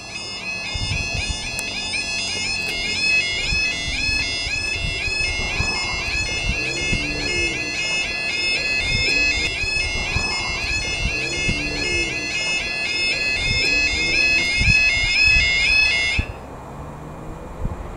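Level crossing's audible warning alarm: a loud, rapidly warbling electronic yodel tone that repeats without pause while the road lights show red and the barriers lower. It cuts off suddenly about sixteen seconds in, with the barriers down.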